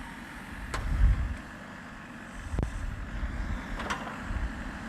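Backhoe loader's diesel engine running as its hydraulic stabilizer legs are lowered for support, an uneven low rumble with a louder surge about a second in and a sharp knock a little past halfway.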